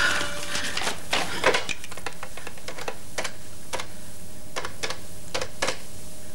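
A corded desk telephone being picked up and dialled by hand: a series of separate, unevenly spaced clicks from the handset and the dialling.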